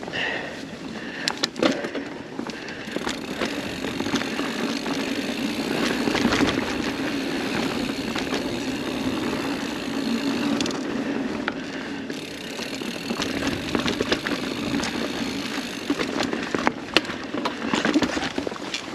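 Mountain bike rolling along a dirt singletrack: a steady rush of knobby tyres on packed dirt and leaves, with scattered clicks and knocks as the bike rattles over bumps.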